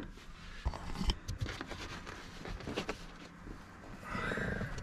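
Faint scattered clicks and light knocks of handling, with a soft rustle near the end.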